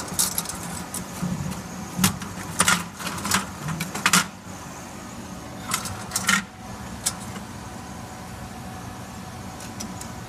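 Laser-cut thin wooden pieces clacking and knocking as they are pulled from the cut sheet and set down on the laser cutter's metal honeycomb bed, a handful of sharp knocks over the first seven seconds. Under them runs a steady hum from the laser cutter.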